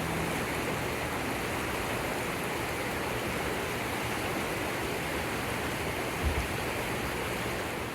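A swollen, flooding river rushing past in a steady roar of moving water.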